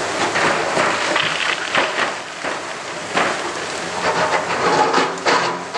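Two excavators breaking up the stone deck of a masonry arch bridge: crunching and clattering of masonry and rubble falling, with several sharp knocks of stone and bucket, over the steady running of the excavators' diesel engines.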